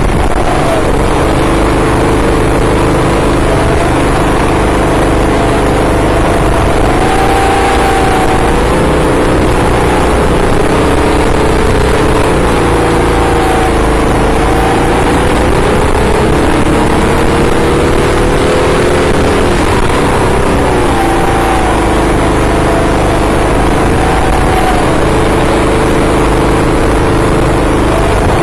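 Several 6.5 hp racing-kart engines running together, their pitches rising and falling as the karts speed up and slow through the corners.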